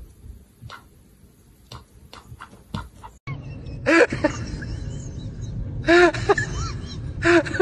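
Short squeaky animal calls, each a quick rise and fall in pitch, come in quick runs of a few at a time over a low background hum. They are preceded by a few faint clicks.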